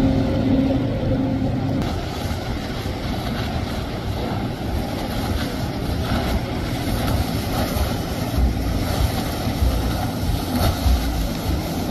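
Motorboat engines running on the water, with wind on the microphone. A steady engine hum stops abruptly about two seconds in, leaving a rumbling mix of engine and wind noise.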